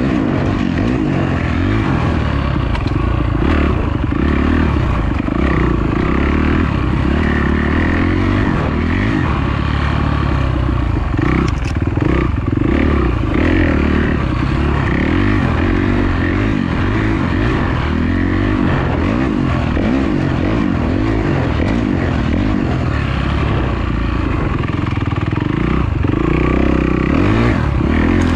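Kawasaki dirt bike's engine running hard, its pitch rising and falling continuously as the rider works the throttle along the trail.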